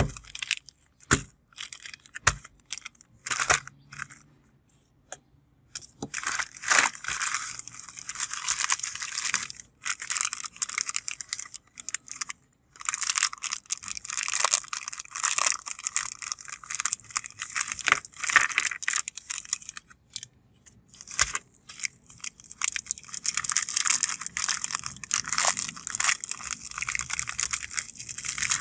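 Foil-lined plastic biscuit wrappers being torn open and crinkled by hand, in long spells of crackling with short pauses. A few sharp taps come in the first few seconds.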